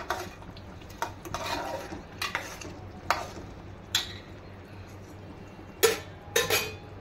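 A steel spoon stirring a thick potato curry in a metal pot, scraping and clinking against the pot in a series of short, separate strokes. Two louder metal-on-metal clinks come close together near the end.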